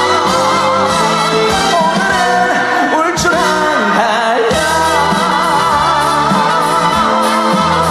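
Trot song performed live: a sung line with heavy vibrato over a pop band backing, with a sliding vocal flourish about midway.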